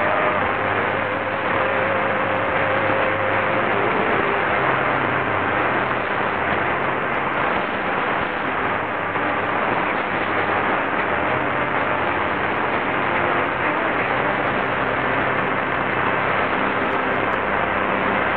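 Static and hiss from a Qodosen SR-286 radio's speaker, tuned to 558 kHz on medium wave, with a faint hum underneath and no clear station audio. A faint steady tone sounds for the first few seconds.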